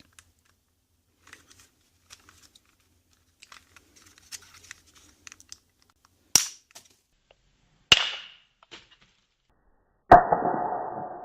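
Small plastic power window switch being pried apart by hand: light clicking and fiddling, then two sharp snaps about six and eight seconds in. Near the end comes a louder hit with a short ringing tail.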